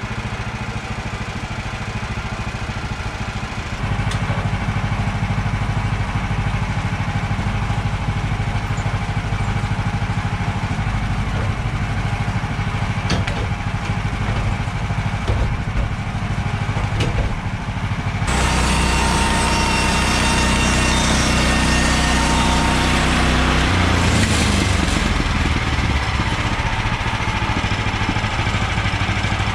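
Woodland Mills portable bandsaw mill's gasoline engine running steadily. About four seconds in it gets a little louder, and around eighteen seconds in it gets louder again with a hiss added, as the band blade saws through a red pine log.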